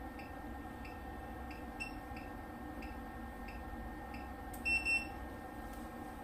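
PCT200i CT analyzer beeping twice in quick succession near the end, signalling that the automatic test is complete. Under it run a faint steady hum and soft ticking about one and a half times a second.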